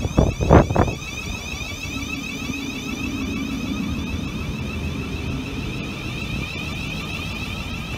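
Siemens Desiro City Class 707 electric multiple unit pulling away from a platform, its traction equipment giving a steady electric whine over a low hum. Wind buffets the microphone for about the first second.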